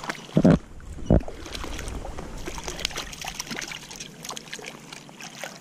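A hooked wild brown trout splashing at the surface as it is drawn in and scooped into a landing net, with water sloshing and trickling. Two heavy thumps come within the first second or so.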